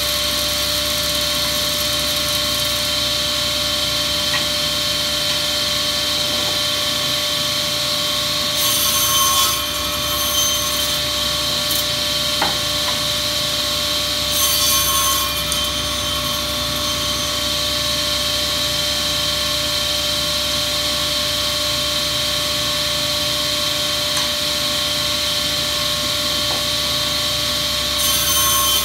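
Sliding table saw running with a steady whine, its blade cutting through softwood boards in three louder, hissing passes: about nine seconds in, about fifteen seconds in, and again at the very end.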